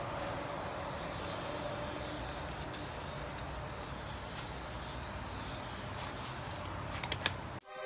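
Aerosol spray paint can spraying in a long continuous hiss, with a short break about a third of the way in, stopping near the end.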